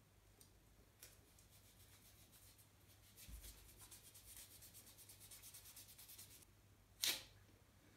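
Cold wax strip being rubbed quickly back and forth over the upper lip to press it onto the skin, a faint rapid scratching. About seven seconds in comes one short, loud rip as the strip is pulled off.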